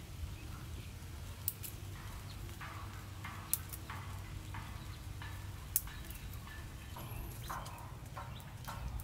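A small fire of dry leaves and twigs smouldering and crackling, with a few sharp pops about a second and a half in, three and a half seconds in and near six seconds, and clusters of short crackles in between.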